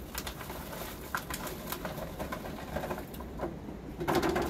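Raw beeswax scraps tipped from a plastic tub into a pot of boiling water: a run of small clicks and patters as the pieces drop in, with a louder knock about four seconds in.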